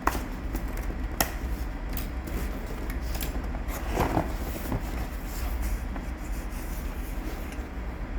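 Sharp clicks and light taps from handling a laptop and small tools, with a short cluster of rattling taps about four seconds in, over a steady low hum.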